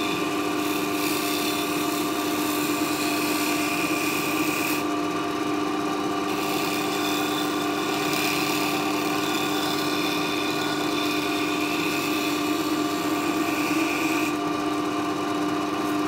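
Record Power wood lathe running with a steady hum while a gouge cuts a spinning hardwood blank, rounding it into a cylinder. The cutting hiss comes and goes and stops a little before the end as the gouge is lifted off, leaving only the lathe's hum.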